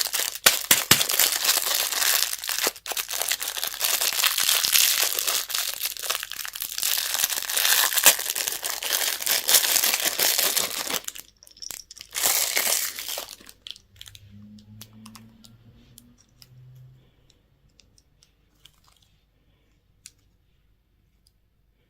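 Candy or toy wrapper being crinkled and torn open, dense and continuous for about eleven seconds, then one more short burst after a brief pause, tapering off to a few faint clicks.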